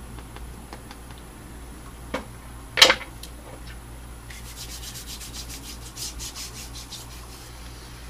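Hands rubbing lotion into the skin of the hands and forearm, a run of quick rubbing strokes from about four seconds in until shortly before the end. Before that come two sharp clicks, the second and louder one about three seconds in.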